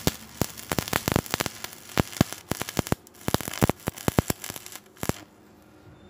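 Stick-welding arc of a 6013 electrode on steel plate, crackling and popping irregularly. The crackling stops about five seconds in as the arc is broken at the end of the bead.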